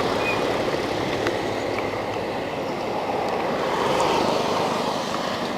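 Steady rain falling with a continuous hiss that swells slightly about four seconds in.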